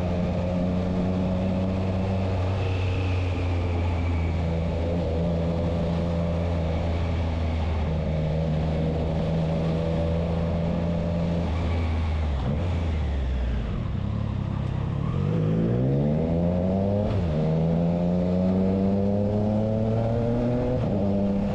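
Triumph Trident 660 inline three-cylinder engine through a Spark exhaust with the dB killer fitted. It holds a steady pitch, drops away, then revs up sharply, with a brief break in the rising note about three-quarters of the way through before it climbs again.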